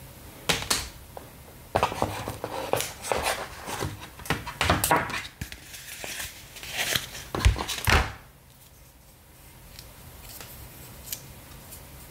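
Cardboard box and paper inserts being handled: a run of rustling, scraping and knocking, with the two loudest knocks about seven and a half to eight seconds in, then only a few faint clicks.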